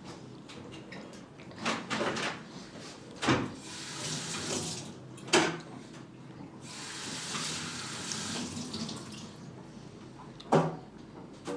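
Kitchen tap running into a sink in two stretches, hissing, with about five sharp knocks spread through, the loudest sounds.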